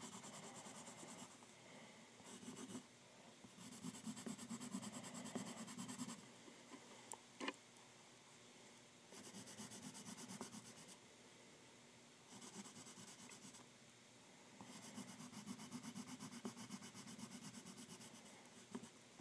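Pencil drawing on paper: about six bursts of quick, rapidly repeating pencil strokes separated by short pauses, with a single sharp click about seven and a half seconds in.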